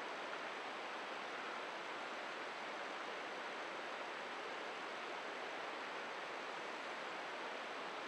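Steady, even rushing noise of open sea and wind around a small boat, with no distinct events.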